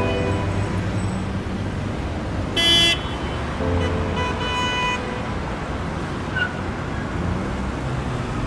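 Road traffic noise with vehicle horns: one short, loud horn toot about two and a half seconds in, and fainter honks near the start and around four seconds in.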